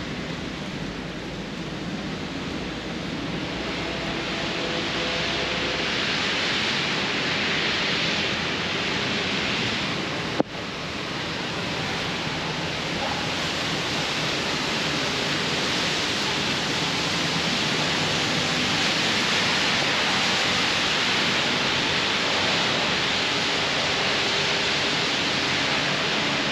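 Heavy tropical rain pouring down in a steady, dense hiss. A single sharp click cuts through about ten seconds in.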